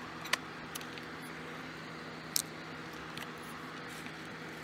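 Steady low hum with a few sharp clicks, the loudest about two and a half seconds in.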